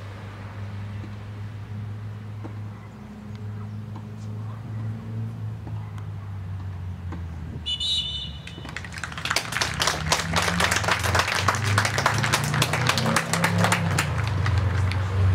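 A quiet stretch with only a low steady hum, then a short blast of the referee's whistle about eight seconds in, which ends the minute's silence. Spectators applaud after it, and the clapping runs on to the end.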